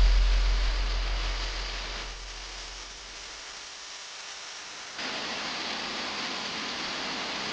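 Steady rushing noise with a low rumble at first. It drops off abruptly about two seconds in and comes back louder about five seconds in.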